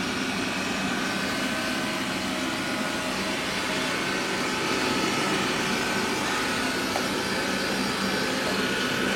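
Roborock S5 Max robot vacuum running at its Max suction setting: a steady whirring hum with a thin high whine over it.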